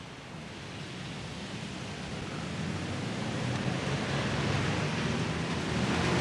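Car driving up and past on an open road: engine hum and tyre noise over a broad rush of traffic, growing steadily louder as it approaches.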